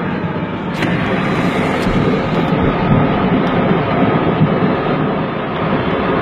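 Steady road and engine noise inside a moving car's cabin, a constant rumble and rush, with one sharp crack about a second in.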